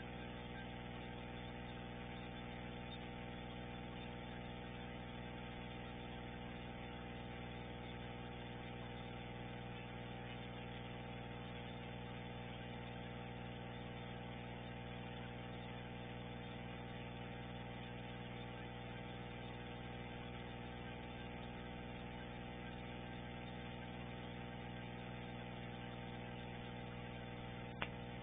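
Steady, unchanging hum with many even overtones under a constant hiss, and one short click near the end.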